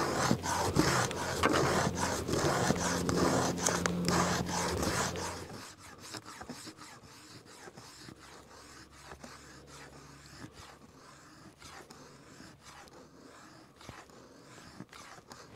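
Sharpened spine of a Mora Garberg knife scraping fine curls and dust off a stick in quick repeated strokes. The scraping stops after about five seconds, leaving only faint scattered ticks of handling.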